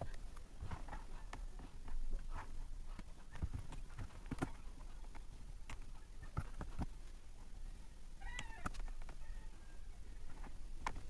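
Computer keyboard typing in scattered keystrokes and clicks while CSS code is entered, with a brief pitched sound about eight seconds in.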